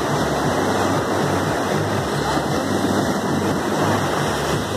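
Sea waves breaking and washing up the sand: a steady, rushing surf noise.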